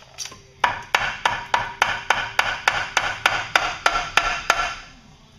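A mallet striking the lower unit of a Honda 90 hp outboard in a quick, even run of about fifteen blows, three or four a second, knocking the gearcase loose from the midsection once its retaining screws are out.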